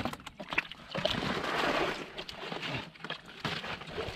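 Shallow muddy pond water splashing and sloshing, with scattered clicks and knocks, as a plastic basket is worked through it to catch catfish. The splashing is heaviest about a second in.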